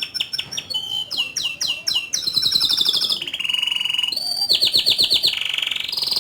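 Canary singing a long, loud song: fast rolling trills, a series of quick downward-sweeping whistled notes, and a held steady note, one phrase after another.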